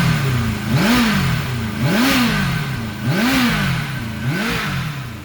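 Turbocharged Kawasaki ZXR750 inline-four engine being revved in repeated throttle blips, its pitch rising and falling about once a second. It is running roughly and sounds horrible: the mixture is rich, and the plugs are found sooted black.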